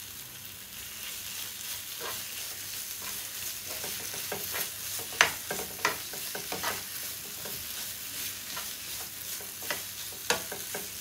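Potato and sweet-corn stuffing sizzling faintly in a nonstick frying pan while it is mixed by hand, with scattered light clicks and knocks against the pan, the loudest about five seconds in.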